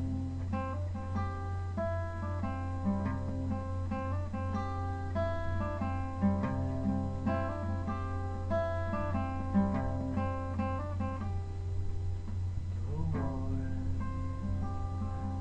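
Acoustic guitar played solo, picking a melody of single notes over chords, with a steady low hum underneath.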